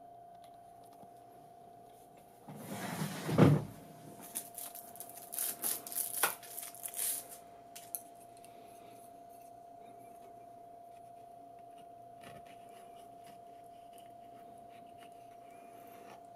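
Handling noise: a loud thump about three seconds in, then several seconds of irregular clicks and rustling, over a faint steady hum.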